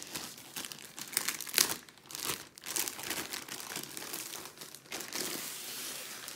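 Thin clear plastic protective cover crinkling as it is pulled off a rolled diamond painting canvas. The crackles are irregular, the sharpest about a second and a half in, and they thin out near the end.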